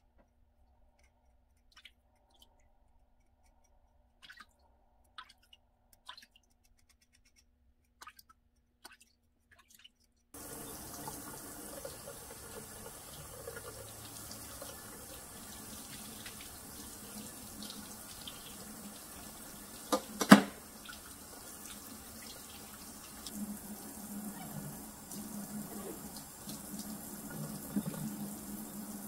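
Faint clicks and scrapes, then about a third of the way in a kitchen faucet spray head turns on and runs steadily, water splashing over hands and into a white sink basin. A single sharp knock sounds about two-thirds of the way through.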